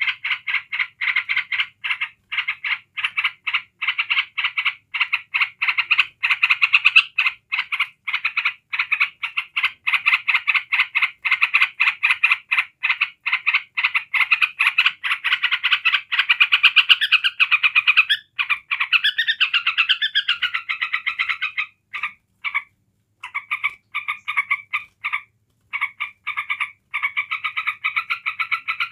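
Yellow-vented bulbul giving its continuous rapid rattling chatter, the unbroken 'ngebren' call, as fast, even pulses several a second. It breaks off a few times for moments in the second half.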